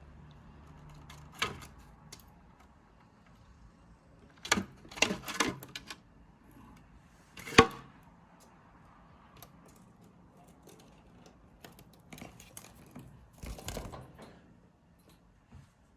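Budgerigar chick climbing: scattered taps and scrapes in a few short clusters, the sharpest and loudest one about halfway through.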